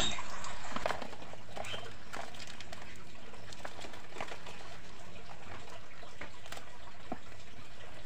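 Faint rustling and scattered small clicks of a cardboard box being handled and reached into by hand, over a steady low background hiss.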